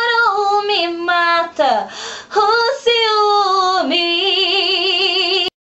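A woman singing a slow sertanejo ballad in Portuguese, sliding between notes, then holding a long final note with vibrato that cuts off suddenly near the end.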